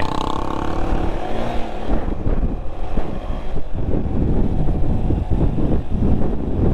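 Off-road vehicle engine running under way, a dense, uneven rumble.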